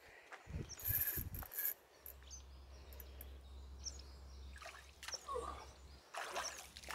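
Water splashing and swishing around legs as a person wades in shallow river water, in two spells about a second in and again near the end, with faint bird chirps and a low steady hum in between.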